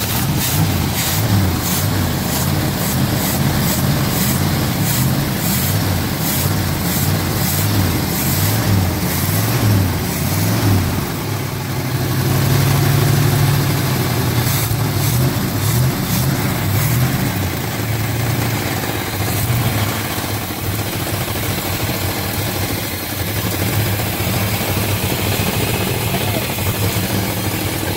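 Chevy 454 big-block V8 with a Quadrajet four-barrel carburettor and its air cleaner off, running just after being started for the first time in 14 years. It runs unevenly for the first ten seconds or so, picks up briefly about twelve seconds in, then settles to a steadier idle.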